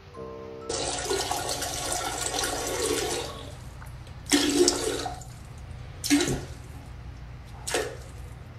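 Toilet flushing: a rush of water for about three seconds, then three shorter surges of water noise.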